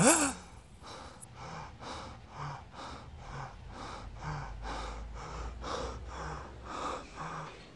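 A person jolting awake from a nightmare with a loud gasp that rises in pitch, then breathing hard and fast, about two breaths a second.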